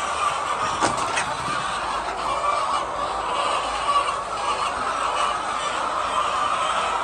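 A large flock of laying hens calling all at once, making a steady mass of overlapping calls, with a couple of sharp clicks about a second in.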